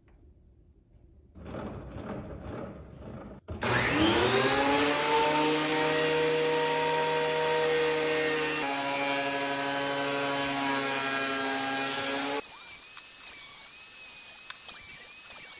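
Ryobi benchtop thickness planer motor spinning up with a rising whine, then running steadily as a weathered 4x4 is fed through. Its pitch drops a little about halfway through, as under the load of the cut. Near the end it gives way to background music with warbling tones.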